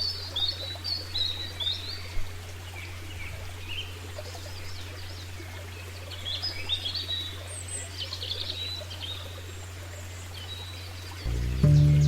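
Songbirds chirping and twittering in short bursts over a steady low hum. Music with held notes comes in near the end.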